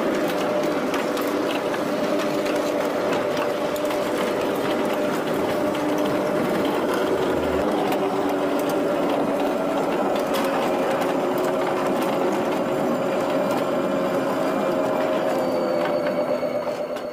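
Homemade ride-on miniature train running along its steel track: a steady mechanical hum from the drive, with scattered clicks and clatter of the wheels on the rails.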